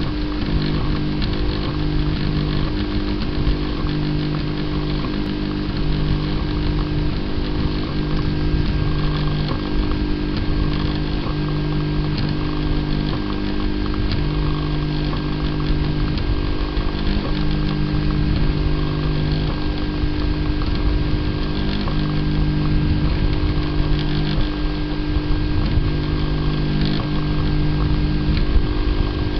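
Prusa i3-style 3D printer's stepper motors whining while printing, the pitch jumping every second or two as the print head changes moves, over a steady mechanical hum.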